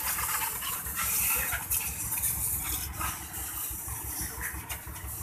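Jet of water from a hose spraying onto a motorcycle, a steady hiss and splatter, loudest about a second in. A low pulsing hum runs underneath.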